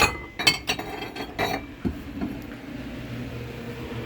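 Dishes (bowls and a plate) clinking and knocking together as they are picked up and handled, a quick run of clinks over the first two seconds, then only a low steady hum.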